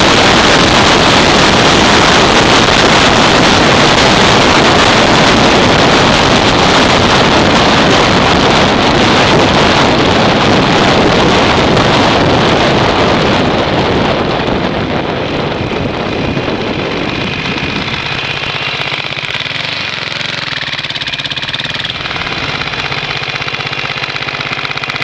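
Wind rushing over the microphone of a moving Yamaha SR 500 motorcycle, fading away about two-thirds through as the bike slows to a stop. The SR 500's single-cylinder four-stroke engine then idles steadily.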